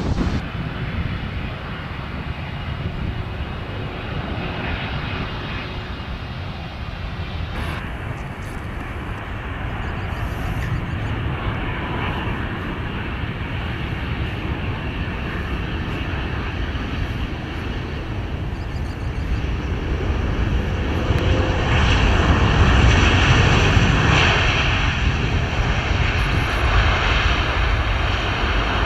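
Twin-engine jet airliners at close range: the engine noise of one lifting off, then, after a cut about eight seconds in, widebody jets landing and on the runway, growing louder for a few seconds past the two-thirds mark.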